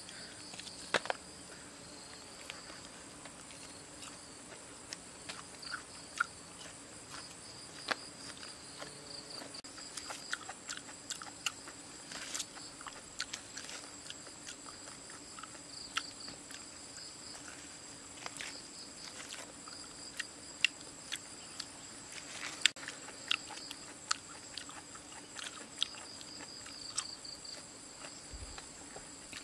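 Ripe jackfruit being torn apart by hand, the bulbs pulled from the fibrous flesh with scattered sharp snaps and crackles, and some chewing. A steady high insect drone runs underneath.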